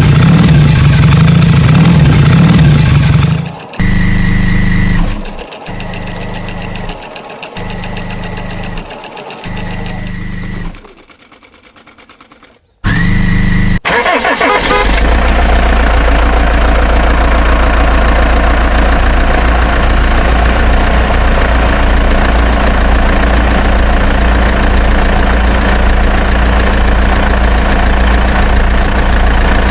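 A tractor engine runs briefly and stops. It is then cranked in four short bursts, goes quiet, and catches about thirteen seconds in, settling into a steady idle.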